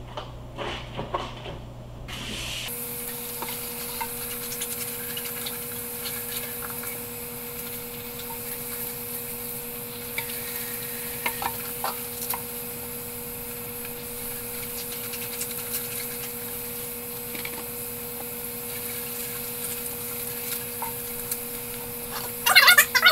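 Wet goalkeeper gloves being squeezed and swished by hand in a sink of soapy water: soft sloshing and squelching with small scattered ticks, pushing the water through the latex like a washing machine. A steady hum comes in about three seconds in and runs under it.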